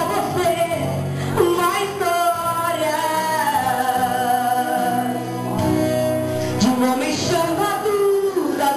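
A woman singing a gospel song into a microphone over instrumental backing, holding a long note through the middle.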